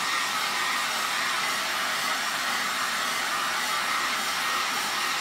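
Handheld hair dryer running steadily, blowing on a freshly painted foil panel to dry the acrylic paint.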